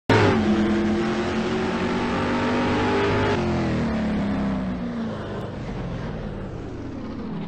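A car engine revving hard, its pitch climbing for about three seconds, then dropping suddenly and sinking lower as it fades away.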